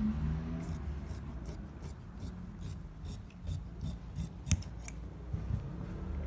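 Large tailor's shears snipping through printed dress fabric in a steady run of short cuts, about three a second, with one sharper snap of the blades about four and a half seconds in; the cutting stops about a second before the end.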